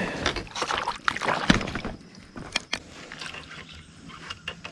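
Water splashing and sloshing at the side of a kayak as a small largemouth bass is let go, dying down after about two seconds. A few light clicks follow.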